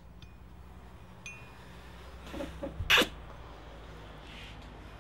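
Faint clinks of a spoon against a ceramic cup, twice early on. About three seconds in there are a couple of quick breaths and then one short, sharp vocal burst from a person.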